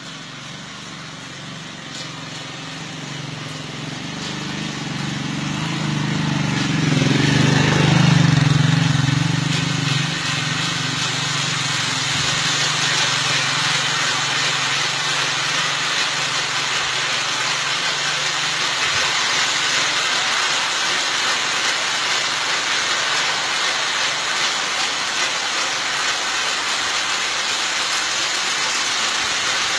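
A banana cableway train of plastic-bagged banana bunches running along an overhead cable. A low rumble builds and peaks about eight seconds in, then settles into a steady rushing rattle as the bunches slide past.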